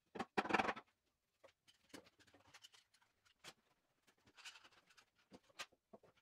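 Plywood jig parts and bar clamps being handled on a wooden workbench during a glue-up: scattered knocks and clicks, the loudest a short clatter just after the start, with a soft scrape about four and a half seconds in.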